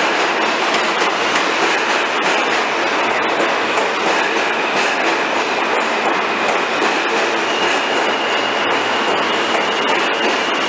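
New York City subway train running through the station: steady, loud wheel-on-rail noise with clickety-clack, and a faint high whine coming in near the end.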